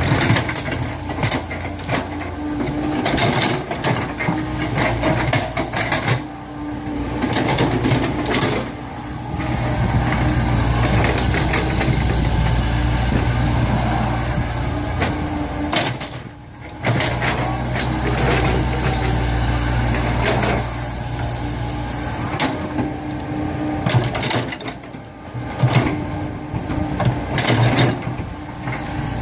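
Komatsu PC70 hydraulic excavator at work. Its diesel engine runs under a load that keeps changing, with frequent clanks and knocks. The engine sound dips briefly just past the middle.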